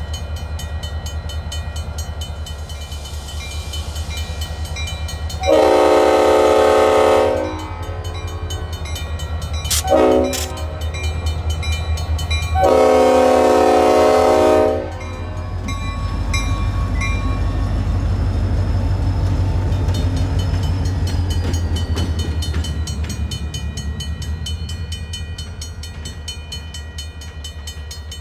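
Diesel locomotive horn sounding a long blast, a short blast, then another long blast, over the steady rumble of the locomotive's diesel engine. The engine rumble swells as the locomotive rolls through the crossing in the second half, while the grade-crossing bell rings throughout.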